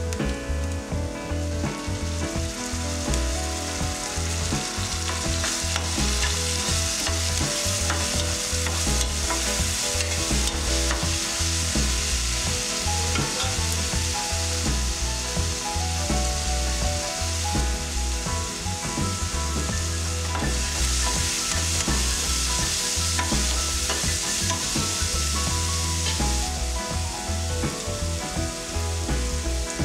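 Chopped onions frying in hot oil in a nonstick pan, with a steady sizzling hiss throughout. A spoon stirring them through the oil adds small scrapes and clicks.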